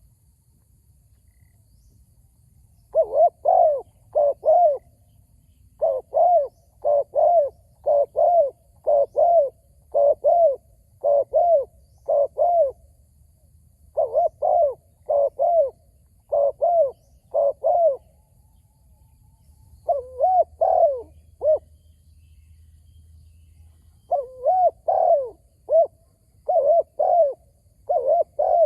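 Spotted doves cooing: short phrases of two or three coos repeated again and again, with a pause of about three seconds at the start and another pause of several seconds past the middle.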